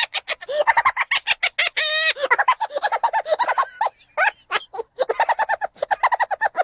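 High-pitched cartoon giggle walla: many squeaky, sped-up voices laughing together in rapid chattering bursts, munchkin-like, with a short lull about four seconds in.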